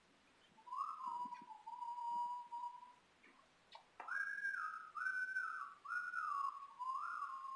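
A person whistling a slow tune: long notes that slide up and fall back, in two phrases with a short pause about three seconds in.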